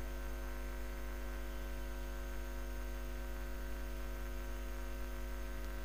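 Steady electrical mains hum: a low, unchanging buzz with a stack of evenly spaced overtones. No stirring or frying is heard.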